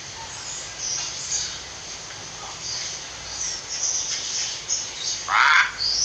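Hill myna calling: scattered short, high chirps and whistles, then a louder, harsher call a little after five seconds in.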